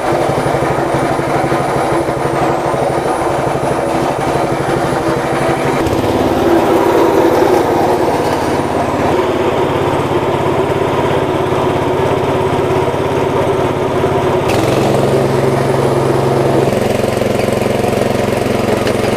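Small petrol engine running steadily, driving a belt-driven chili grinding mill as fresh chilies are fed through and ground to paste. The engine note changes abruptly twice, about six and fourteen seconds in.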